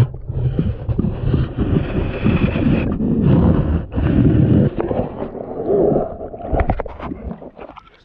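Muffled water sloshing and gurgling around a camera held underwater, loud and irregular with many small knocks, dying away near the end as the camera comes out of the water.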